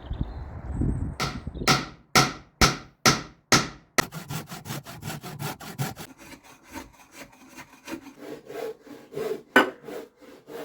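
A hand tool working wood in a steady rhythm: strong strokes about two a second, turning to quicker, lighter strokes from about four seconds in.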